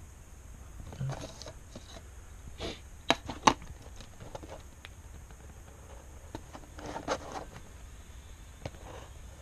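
A clear plastic ruler and sheets of paper being shifted on a desk: scraping and rustling, with two sharp clicks about three seconds in as the ruler is set down. More rustling comes near the end.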